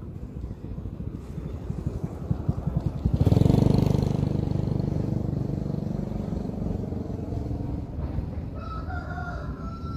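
A motor vehicle's engine comes closer with a pulsing beat, is loudest about three seconds in, then fades slowly as it passes. Near the end a rooster crows.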